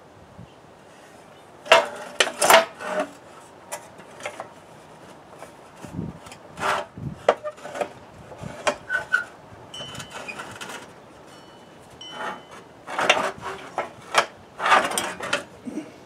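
Control panel of a Craftsman EZ-3 riding lawnmower being worked loose and lifted off its frame by hand: irregular knocks, clatters and scraping rubs, loudest about two seconds in and again near the end.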